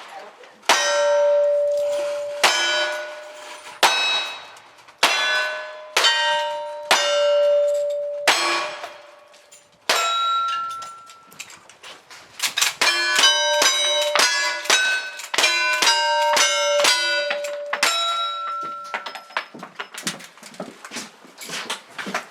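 A string of cowboy action shooting gunshots at steel targets, each hit followed by the plate ringing out. The shots come about one a second at first, then in a fast run of closely spaced shots with overlapping rings in the middle, and slower again near the end.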